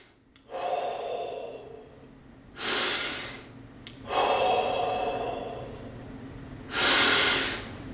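Heavy breathing close to the microphone: longer drawn breaths alternating with short, forceful rushes of air about four seconds apart, the last one near the end the loudest.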